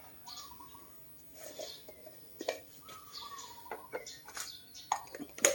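Light handling noises: scattered small clicks and knocks with a few short squeaks, as the air filter and grease are handled.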